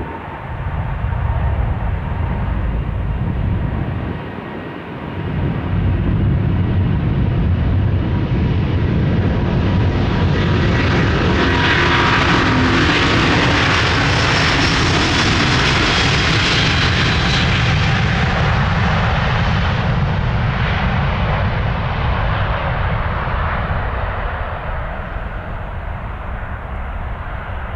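Airbus A350-900's Rolls-Royce Trent XWB turbofans at takeoff thrust during the takeoff roll: a heavy rumble with a steady whine at first, briefly easing about four seconds in, then building. The roar peaks as the jet passes close by in the middle and fades as it runs away down the runway.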